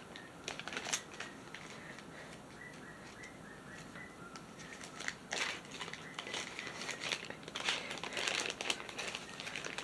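Plastic packaging crinkling as it is handled and opened, faint, with louder rustles about five seconds in and again near the end.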